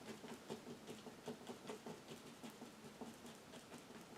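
Bristle paintbrush tapping acrylic paint onto canvas, faint, about four soft taps a second, stippling grass.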